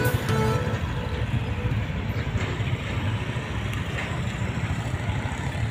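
Road traffic: cars and motorcycles driving along a broken, unpaved road, a steady low rumble. Background music with violin ends about half a second in.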